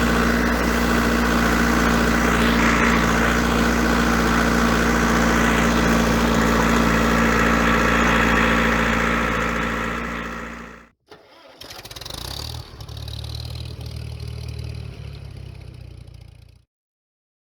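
Tractor engine running steadily, fading out about ten seconds in. After a short gap a second, quieter engine sound runs for about five seconds and then cuts off.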